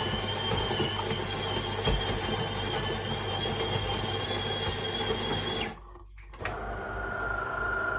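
De'Longhi Eletta Explore bean-to-cup coffee machine running with a steady high whine over a low hum. The whine cuts off suddenly about six seconds in, and a lower whine starts half a second later.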